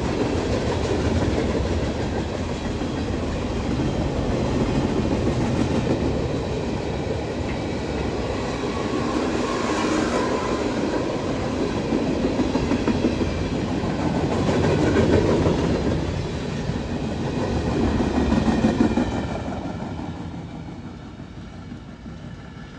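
A long freight train of about 500 axles rolling past at speed, its wheels running steadily over the rails. About nineteen seconds in, the last cars go by and the sound fades away.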